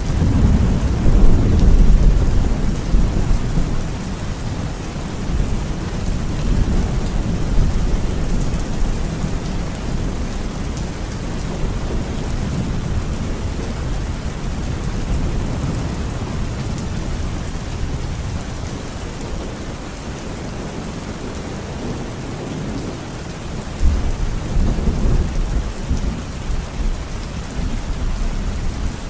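Heavy rain falling steadily, with rolling thunder: a long low rumble at the start, the loudest part, and another roll near the end.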